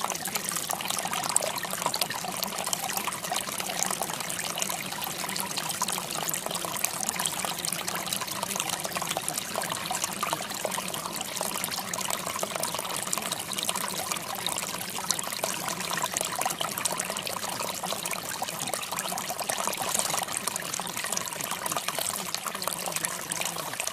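Steady running water, trickling and splashing evenly without a break.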